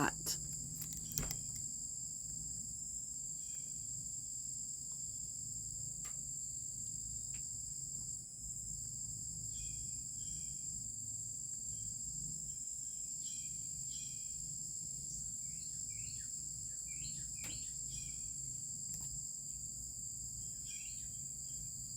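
Steady high-pitched insect-like trill over a faint low hum, with a few light ticks and soft rustles.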